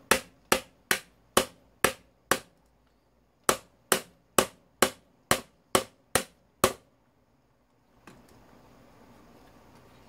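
Hammer blows on the top end of an old wall-fan's electric motor: about fourteen sharp metal strikes at roughly two a second, in two runs with a short pause between, knocking out the bolts that hold the motor housing together.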